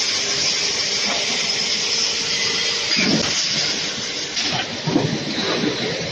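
Double-station, four-head blow molding machine for 1 L milk bottles running: a steady hiss with a constant hum, and a few irregular knocks and clanks of its moving parts from about three seconds in.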